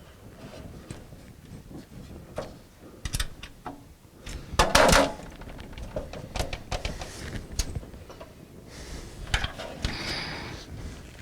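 Scattered clicks and knocks of parts being handled inside a desktop PC case, with a louder clatter about five seconds in and a stretch of rustling near the end.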